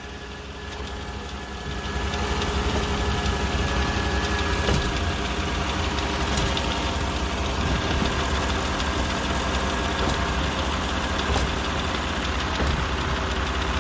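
Chevy Tahoe engine idling while the steering is worked, the hum getting louder about two seconds in, with a few faint clicks from the steering. This is the steering noise left by a collision.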